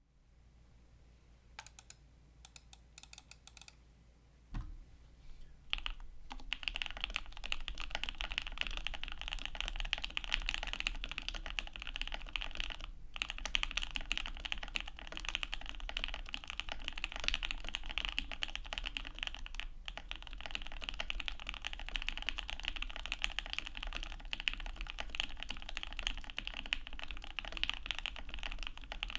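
Typing on an aluminum Obliterated75 mechanical keyboard with Wuque Studio OA switches, the switches lubed heavily enough that the keystrokes sound pretty quiet. A few scattered clicks and a thump come first, then steady fast typing from about six seconds in, with two short pauses.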